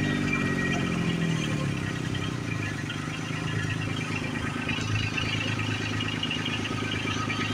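Combine harvester engine running, its pitch dropping over the first second and a half, then settling into a steady low hum.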